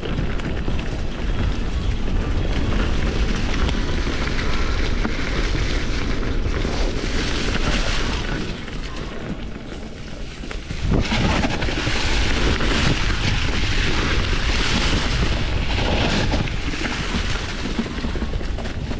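Wind buffeting the microphone over the low rumble of a Polygon D6 mountain bike rolling along a dirt trail. The noise eases for a couple of seconds past the middle, then comes back abruptly with a knock.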